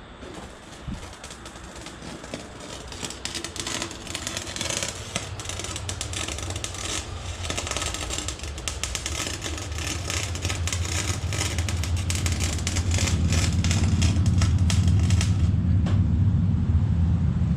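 Wire-feed (MIG) welder crackling and sputtering as it lays a bead on steel, stopping abruptly near the end. A low steady hum grows louder over the last few seconds.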